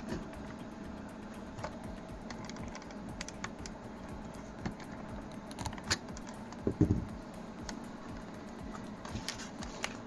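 Small clicks and taps of a camcorder and its 3D-printed plastic tripod quick-release plate being handled, with a short cluster of louder knocks about seven seconds in.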